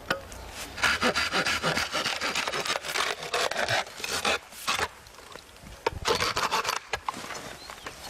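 A hand saw cutting through a bamboo culm in quick back-and-forth strokes, with a short pause a little past the middle before a few more strokes.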